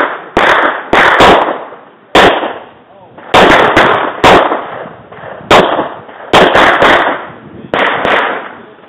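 Semi-automatic pistol fired rapidly at a course of targets, about a dozen shots mostly in quick pairs with short pauses between, each with a brief echo.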